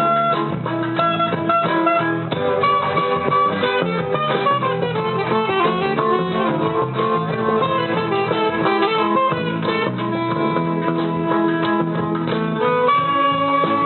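A band playing in rehearsal, with guitar prominent and held melody notes over a steady accompaniment.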